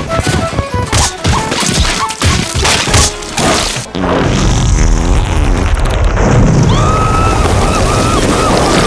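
Cartoon soundtrack: music and a quick run of crashes and whacks, then from about four seconds in a loud steady rumble with short squeaky cries over it.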